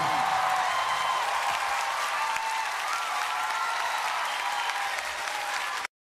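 Live audience applauding as a pop song ends, with a few faint high cheers over the clapping; the sound cuts off abruptly near the end.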